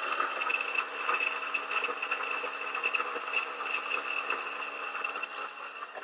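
DF64E single-dose coffee grinder, with 64 mm flat burrs, running and grinding a 16 g dose of espresso beans: a steady motor whine with a grinding rasp. It thins out and grows quieter near the end.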